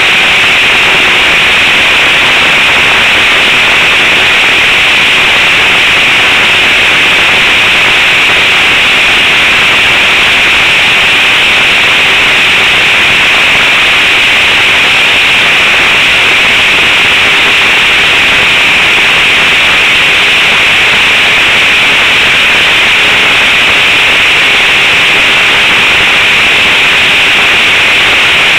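Model trainer airplane in flight, heard from a camera mounted on its nose: a loud, steady rush of wind and the spinning propeller and motor, with a faint steady hum underneath.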